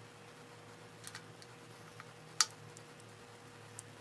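A few sharp metal clicks as oiled steel hydraulic lifters are handled and set into the lifter bores of a Ford 4.0L OHV V6 block, four separate ticks with the loudest about two and a half seconds in, over a faint steady hum.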